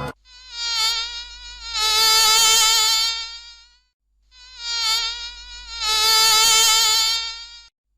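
Flying insect buzzing: a high, wavering whine heard in two passes of about three and a half seconds each, with a short break about four seconds in. It stops shortly before the end.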